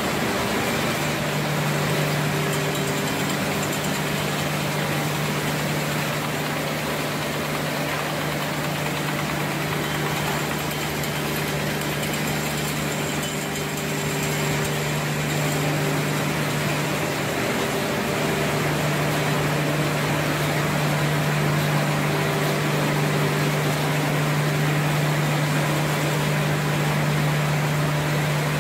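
Machinery of a can-printing production line running steadily: conveyors and automated machines with a constant low hum under an even mechanical din.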